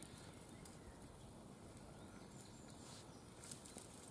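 Near silence: faint outdoor background hiss, with a few faint ticks about three and a half seconds in.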